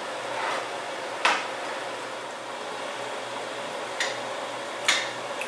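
Kitchen cookware and utensils clinking four times over a steady hiss, the loudest clink about a second in and two more near the end.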